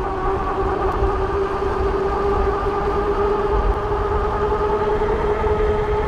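Fat-tire electric bike cruising at about 25 mph on pavement: a steady, unchanging hum from the drive and the fat tyres, over low wind rumble on the microphone.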